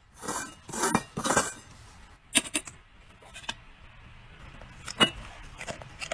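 Upturned stainless-steel dog bowls slid and scraped across a tiled floor three times in the first second and a half, then a few sharp metallic clinks as the bowls are knocked and set down.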